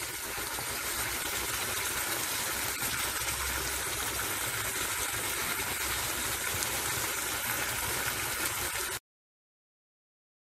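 Chicken ghee roast masala sizzling steadily in a frying pan as it dries out over a low flame. The sound cuts off suddenly about nine seconds in.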